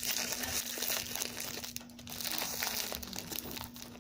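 Thin plastic wrapping crinkling and crackling in the hands as a small toy packet is opened, many quick irregular crackles.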